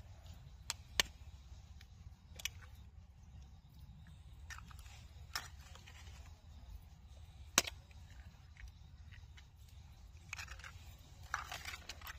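A handful of sharp clicks and knocks, about six in the first eight seconds, then scraping and rustling near the end, over a low steady hum.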